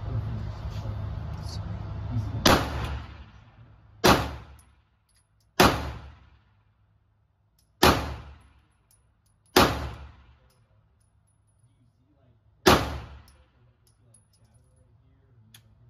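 Six single shots from a Canik TTI Combat 9mm pistol, fired at uneven intervals of one and a half to three seconds, each echoing in the indoor range. The firing stops after the sixth shot, when the pistol fails to return to battery.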